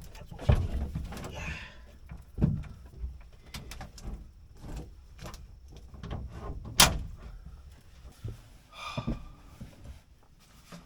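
Knocks, thumps and rustling of someone moving about and handling gear inside a truck-bed camper topper, with a few sharper strikes; the loudest is a sharp knock a little past the middle.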